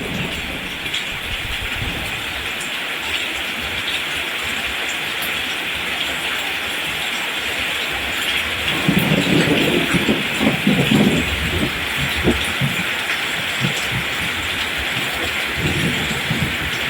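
Steady rain falling on rice plants, an even hiss. Low rumbles of thunder swell up about halfway through and again near the end.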